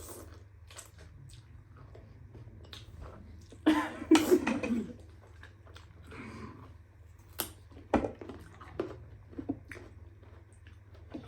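Eating sounds close to the microphone: chewing of noodles, with one loud noisy burst about four seconds in and a few short sharp clicks and crunches later on.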